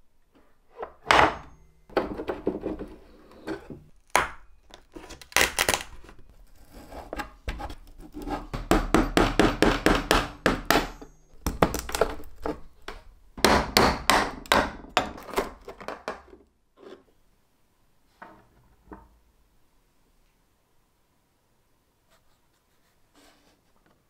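Rusty metal rods knocking and rubbing against wooden blocks and a wooden board as they are worked by hand, in bursts of quick rattling strokes that stop about two-thirds of the way through.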